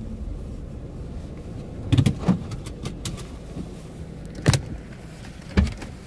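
Low, steady rumble inside a car cabin on a rough dirt lot, broken by sharp knocks and rattles: two about two seconds in, then single ones midway through and near the end.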